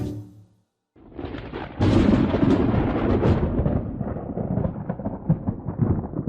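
A musical note fades out, then about a second in a loud, low rumbling noise with a crackly texture starts, swells and carries on steadily.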